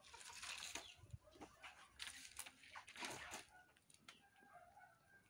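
Faint rustling and crinkling of a large printed plastic sheet being handled, in a few short bursts. Chickens cluck faintly near the end.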